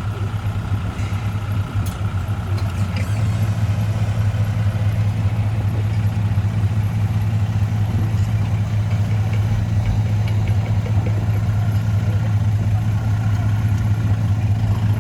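Heavy vehicle's diesel engine running steadily with a low, even drone.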